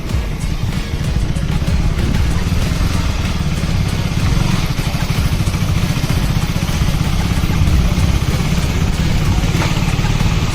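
KTM Duke motorcycle engine running steadily as the bike is ridden.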